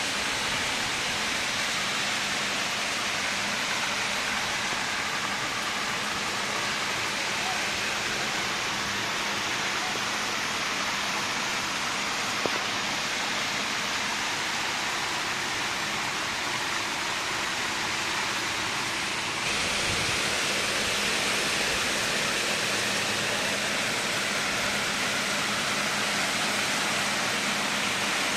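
Heavy rain falling steadily, an even hiss of downpour that gets a little louder about two-thirds of the way through, with a single small tick near the middle.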